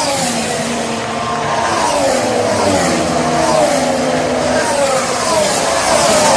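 Formula 1 car engines running at high revs. The pitch slides down and jumps back up several times, about every second and a half.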